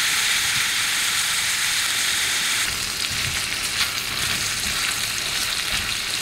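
Food frying in a hot pan with a steady sizzle, with a few light clicks.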